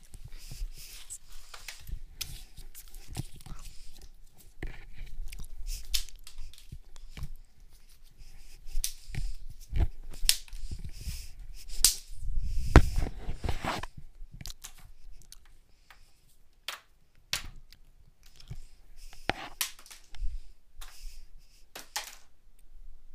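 Irregular clicks, taps and rustling from objects being handled close to the microphone, with a louder cluster of knocks and thuds about halfway through.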